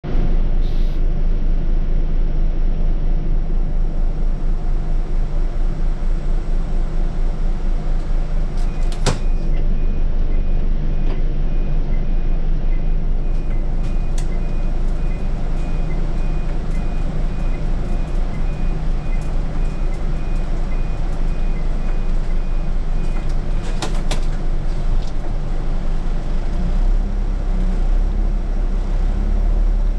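Scania city bus engine running steadily, heard from the driver's seat, with a low drone. Two sharp clicks come about 9 and 24 seconds in, with a faint, quickly repeating high beep between them, and the engine's low rumble swells near the end.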